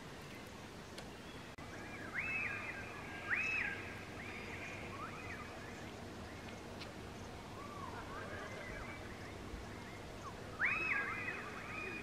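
Several birds calling: short whistled calls that rise, hold and fall, coming in bursts about two to four seconds in and again near the end, with a softer, lower call in between.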